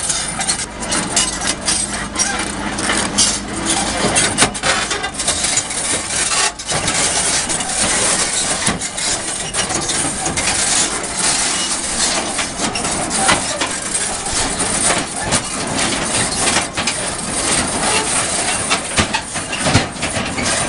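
Komatsu PC210 hydraulic excavator working, its diesel engine running under a dense, continuous clanking and rattling of steel crawler tracks and metal parts.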